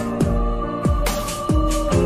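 Electronic background music: sustained synth chords over a beat of deep, falling bass hits with bright cymbal-like hits on top.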